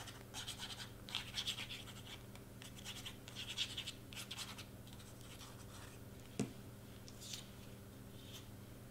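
Faint paper-on-paper scratching and rustling as cardstock pieces are handled and glued down, in clusters of short quick strokes over the first four or five seconds. A single soft knock about six and a half seconds in.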